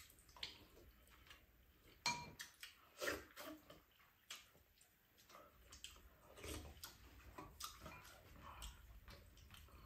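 Faint eating sounds: spoons clicking against bowls, with soft wet chewing and slurping of the stew. There are scattered light clicks, the most distinct about 2 and 3 seconds in.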